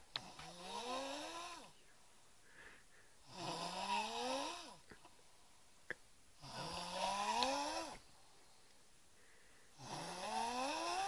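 A man snoring, four long snores about three seconds apart. Each is a tone rising in pitch with a breathy hiss over it.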